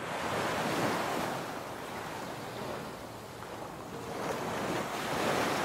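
Ocean surf: waves breaking and washing up a beach. It is a steady rushing that swells and eases, loudest about a second in and again near the end.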